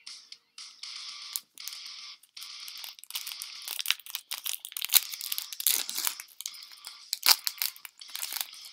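Plastic and foil packaging crinkling and tearing as a trading-card booster pack is opened, crackling and loudest from about three seconds in until shortly before the end.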